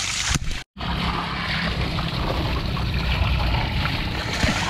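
Steady rush of running stream water, broken by a split-second gap under a second in.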